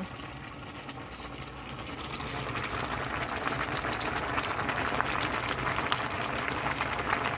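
Dinengdeng, an Ilocano vegetable stew, boiling hard in a stainless steel pot: steady bubbling that grows louder about two and a half seconds in.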